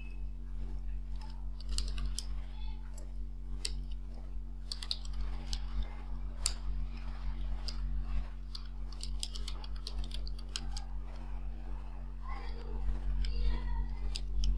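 Computer keyboard being typed on: irregular clusters of key clicks, over a steady low electrical hum.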